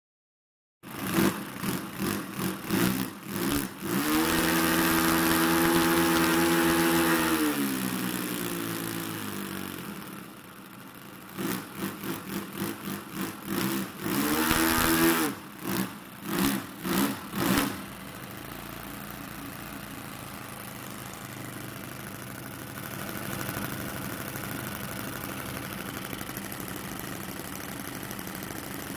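Two OS Max FS40 Surpass four-stroke glow model-aircraft engines with 10x8 props being run up on the ground: a string of short throttle blips, a held high rev that winds down, more blips, then a steady run from about two thirds of the way in.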